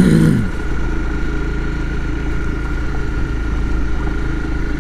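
Motorcycle engine running steadily at low speed on a slow ride down a dirt road, with a thin steady whine above it.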